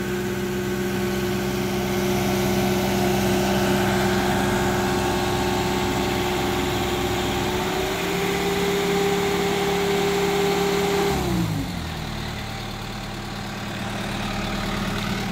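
Boat travel lift's engine running steadily under load as it hoists a sailboat in its slings. About eight seconds in its pitch rises slightly, then around eleven seconds it winds down to a lower, quieter idle as the lift stops.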